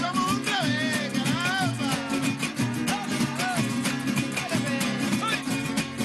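Venezuelan parranda carachera played by a folk string ensemble: small guitars strummed in a fast, even rhythm over a drum, with a sliding melody line on top in the first couple of seconds and again briefly around five seconds in.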